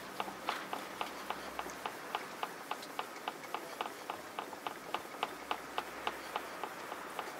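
Steel blade of a Tosa-style multipurpose kitchen knife stroked back and forth on a wet natural whetstone, a short scrape at each stroke. The strokes come in a steady rhythm of about three to four a second.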